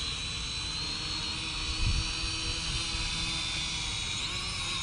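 Small quadcopter's brushed motors and propellers whining steadily in flight, the pitch shifting near the end as it is caught by hand. A brief low rumble about two seconds in.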